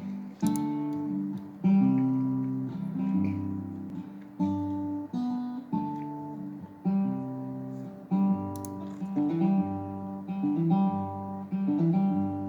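Acoustic guitar playing the song's intro: chords struck about once a second and left to ring.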